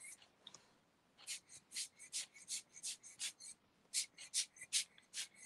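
Fine-mist spray bottle pumped rapidly: two runs of short hissing spritzes, about three a second, with a short pause after the first run.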